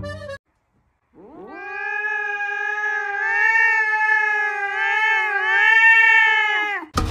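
Domestic cat giving one long drawn-out yowl of about five seconds, gliding up at the start, wavering slightly in pitch and dropping off at the end.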